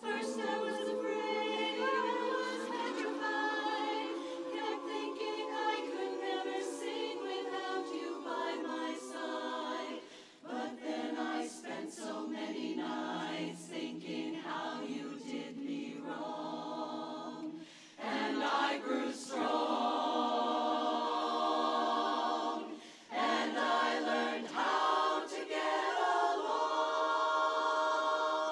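Women's barbershop chorus singing a cappella in close harmony, with sustained chords and brief breaks between phrases.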